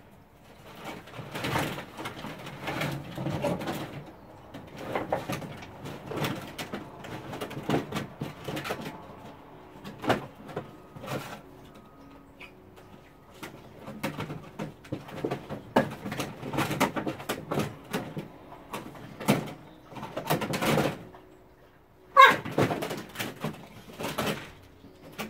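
A dog splashing and pawing at the water in a plastic kiddie pool: irregular splashes and sloshes throughout, the loudest about three seconds before the end.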